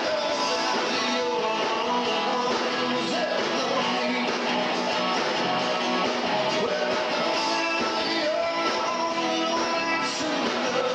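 A rock band playing live, strummed guitar to the fore, with steady full-band music throughout.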